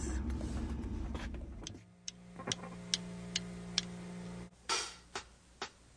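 A low rumbling background, then a regular ticking a little over twice a second over a steady hum. The hum stops about four and a half seconds in while the ticking goes on.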